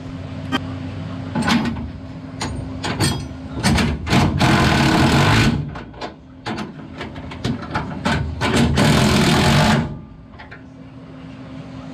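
Impact wrench running in two bursts of about a second each, about four and about nine seconds in, driving the bolts of a bracket on the trunk pan. Short metal clanks from handling the parts come between the bursts, over a steady low hum.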